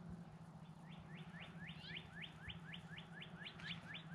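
A songbird singing a run of quick, repeated whistled notes, about four a second, over a faint steady low hum.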